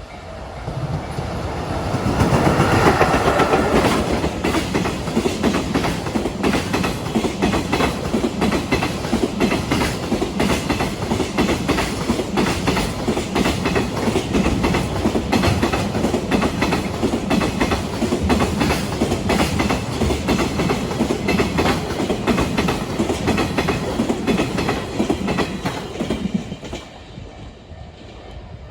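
Freight train passing close by. The loudest moment comes about two to four seconds in, as the head of the train goes past. A long string of freight wagons follows, wheels clattering steadily over the rail joints, until the sound drops away a couple of seconds before the end.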